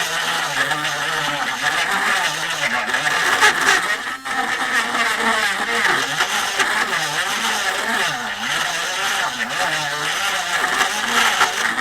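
Handheld rotary tool running at high speed and grinding old glue out of a guitar's neck pocket. Its pitch wavers up and down as the bit bears into the glue and wood, with a brief drop about four seconds in.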